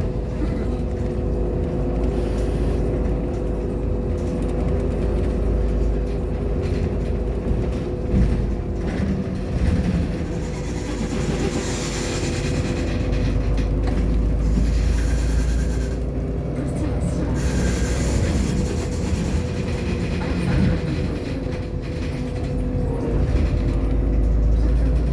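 Irisbus Agora L articulated city bus on the move: a steady engine and drivetrain drone with several held whining tones over a low road rumble, and brief hissing bursts about halfway through.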